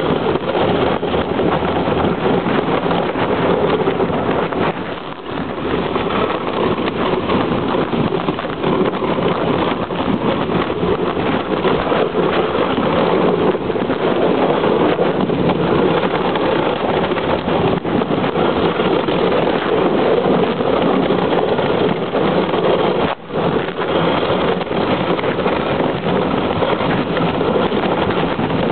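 Steady, loud rushing noise of wind buffeting the camera microphone on a moving dogsled, broken by one brief dip about 23 seconds in.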